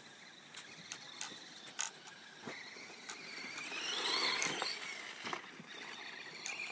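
Brushless electric motor of a Traxxas Stampede 4x4 VXL radio-controlled truck whining. The whine rises in pitch as the truck speeds up about two and a half seconds in, then falls away again, with a few light clicks scattered through.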